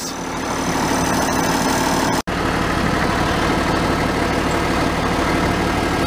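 International Harvester 1066 tractor engine idling steadily. The sound cuts out for an instant a little after two seconds in.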